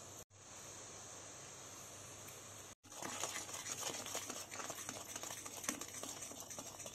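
Mustard-and-ginger paste with turmeric and chilli powder sizzling in hot oil in a metal kadai, a steady hiss. About three seconds in, a steel spatula starts stirring it, and the sizzle turns louder and crackly, with small scrapes and clicks.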